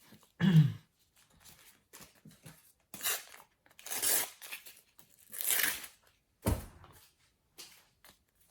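Foil sticker packet being torn open and crinkled: three short tearing rasps around the middle, then a soft knock. A brief low voice sound comes just before.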